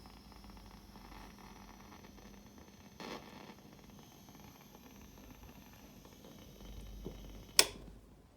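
Fender Princeton guitar amplifier giving off a steady hiss with a faint low hum: the strange hissing its owner is asking about. A brief burst of noise comes about three seconds in, and a sharp click near the end.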